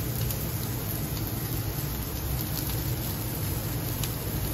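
Steady low roar of a KOSEI KY-85KL professional gas grill running, with yakitori skewers sizzling over it and a few light clicks.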